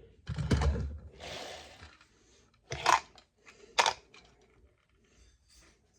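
Hands handling plastic packaging and toy parts: a rustling clatter with a thump in the first second, then two sharp plastic clicks about a second apart.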